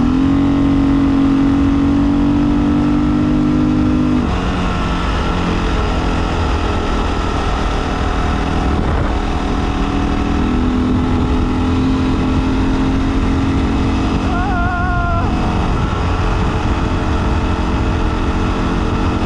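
Honda XR600R dirt bike's single-cylinder four-stroke engine running while riding. Its note drops suddenly about four seconds in, then rises gradually again from about ten seconds.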